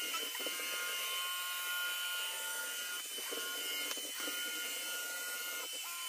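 iRobot Roomba S9 robot vacuum running on its highest power mode: a steady high-pitched motor whine over a hiss of suction. It breaks off briefly a few times, about halfway through and again near the end.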